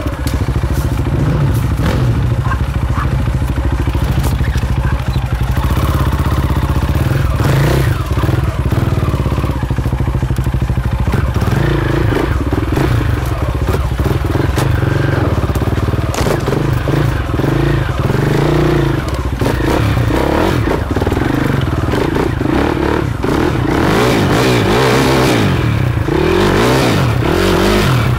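Enduro motorcycle engine running under load on a rough forest trail, with knocks and clatter from the bumps. Its pitch swings up and down several times near the end as the throttle is worked.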